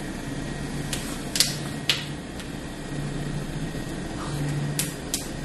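Plastic spoon clicking and scraping against a clear plastic cup of peach jelly, about six short clicks, over a low hum that comes and goes.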